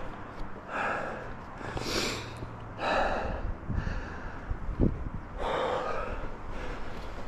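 A man breathing hard in ragged gasps, about five heavy breaths, from the effort of climbing a steep slope of loose, fine sand. A low thud comes about two-thirds of the way through.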